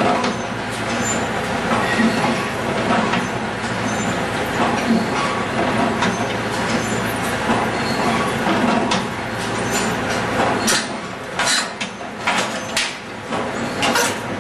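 John Deere baler's twine knotter mechanism running at reduced speed: a steady mechanical clatter of turning and rubbing metal parts, with several sharp metallic clicks in the last few seconds.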